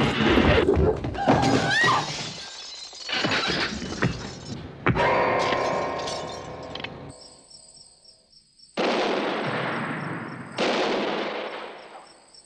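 Film soundtrack sound effects: a dense run of crashes and impacts, a sharp hit about five seconds in, then a steady high pulsing chirp with two sudden loud hits that each fade away over a second or two.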